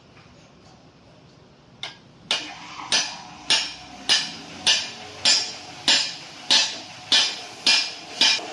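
Hammer striking metal in a steady rhythm, about one and a half blows a second, each blow ringing briefly. A single lone strike comes first, just under two seconds in.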